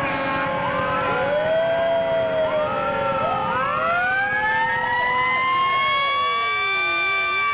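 Several fire truck sirens wailing at once, their overlapping pitches each sliding slowly up and down; about halfway through, one rises and holds high to the end.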